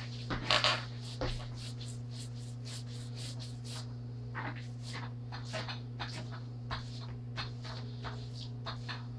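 Paintbrush brushing paint onto a wall, a series of short irregular scrapes of the bristles, over a steady low hum.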